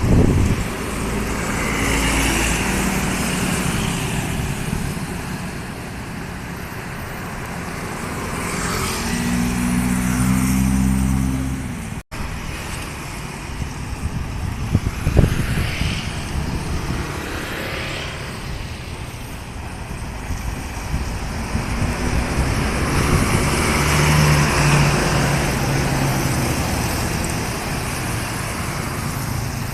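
Road traffic passing close by, vehicles going past one after another with engine and tyre noise swelling and fading. A deeper engine hum stands out about ten seconds in and again near the end.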